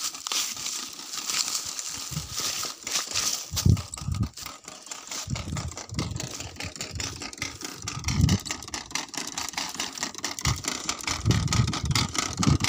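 Dry corn stalks and crop residue crunching and crackling underfoot on tilled soil, with light rattling and a few dull thuds.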